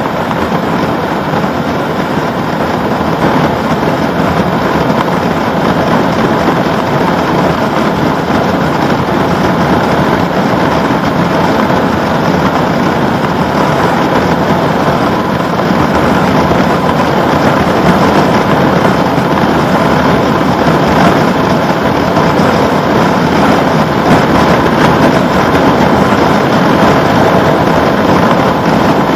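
Steady wind rush on the microphone of a motorcycle riding at road speed, with the Honda CB1100RS's air-cooled inline-four engine running steadily underneath.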